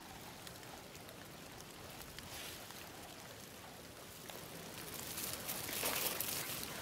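Rustling and crackling of leaves and twigs, getting louder about five seconds in.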